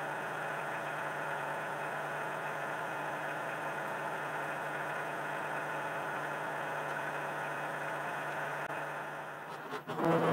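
Kioti compact tractor's diesel engine idling steadily with a low, even hum.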